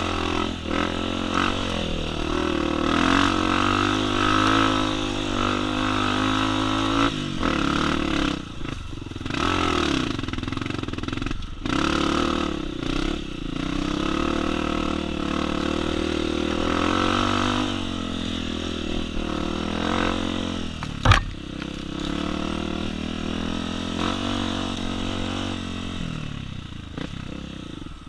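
Four-stroke single-cylinder trail motorcycle engine running under way, holding steady revs with a few dips and pick-ups in engine speed. A single sharp knock sounds about three-quarters of the way in.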